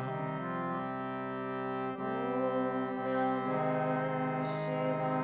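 Harmonium playing sustained chords between chanted lines of a kirtan, the notes shifting about two seconds in and again a little later.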